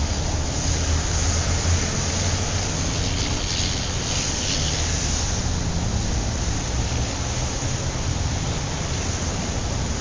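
City traffic ambience: a steady low rumble of vehicles under a continuous hiss, with a brief brighter swell of hiss about four seconds in.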